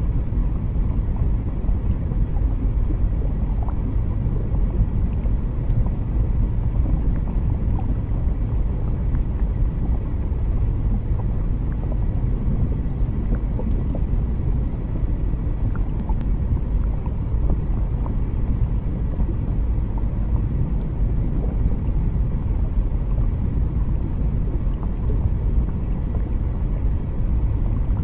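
Underwater ambience: a steady, deep rumble, dense and even, with faint scattered clicks.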